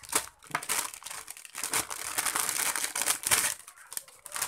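Thin clear plastic packaging bag crinkling and rustling in irregular bursts as it is opened and a skipping rope is pulled out of it, loudest a little after three seconds in.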